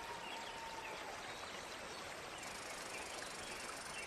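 Forest ambience: a steady rushing noise with scattered faint, short, high chirps and a faint held tone during the first second.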